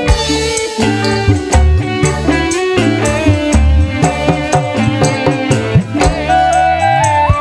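Loud music played through a large PA sound system in a sound check: a steady drum beat with deep bass hits under a melody line that bends and wavers in pitch.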